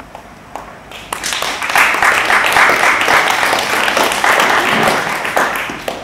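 Audience applauding to welcome a speaker called to the microphone. The clapping starts about a second in and dies away near the end.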